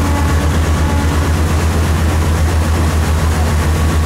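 Passenger river boat's engine running steadily with a deep, fast, even throb, under a steady hiss of wind and water.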